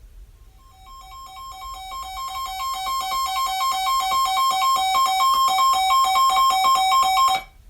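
Sangean Action weather radio's own alert alarm: rapid beeps alternating between two pitches, growing steadily louder for about seven seconds and then cutting off suddenly. It is the receiver's signal that a new weather alert, here a tornado warning, is coming in.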